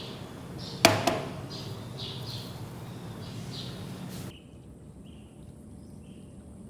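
A bird chirping over and over, short high chirps about every half second, with a sharp knock about a second in.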